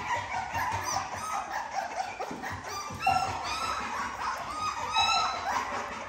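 American bully puppies whining and yipping in short, high cries as they jostle for a shared bowl of food, with bursts of cries about three seconds in and again about five seconds in.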